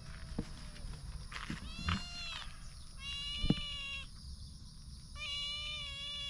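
An animal calling three times, each call a pitched, drawn-out cry about a second long, the last one longest. A sharp knock about halfway through.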